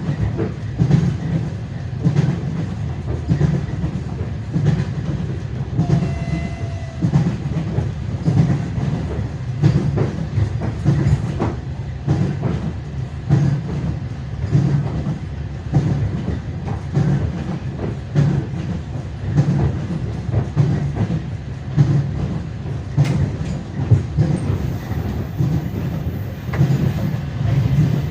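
Passenger train wheels clattering over rail joints in a steady clickety-clack rhythm over a continuous rumble, heard from inside the coach. A brief thin whine comes about six seconds in.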